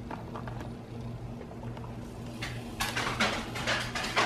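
Spatula scraping sticky pecan pie filling out of a glass mixing bowl, a run of quick scrapes starting a little past halfway and loudest near the end, over a low steady hum.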